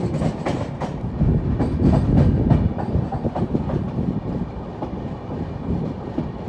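Passenger train running at speed, its wheels clattering in an irregular stream of knocks over rail joints and points above a steady rumble of the coaches, heard from an open coach door.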